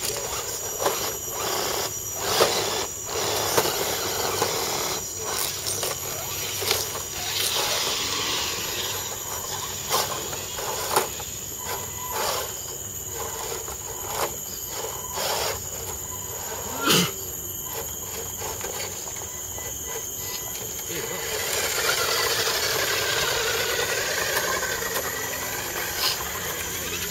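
Small electric RC scale rock crawlers working over rocks: irregular knocks and clicks from tyres and chassis striking stone, and stretches of motor and gear whine as they climb. A steady thin high-pitched tone runs underneath.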